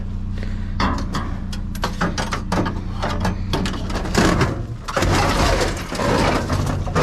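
Knocks, clatter and scraping of discarded computers and junk being shifted around in a dumpster, busiest in the last few seconds, over a steady low hum.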